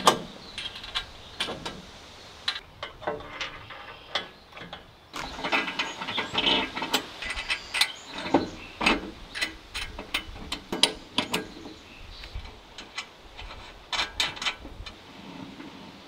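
Irregular metallic clicks and clanks of hand tools and hardware (bolts, washers and wrenches, including a socket ratchet) being worked on the steel frame of a Woodland Mills HM126 bandsaw mill during assembly. The clicking is densest about five to seven seconds in.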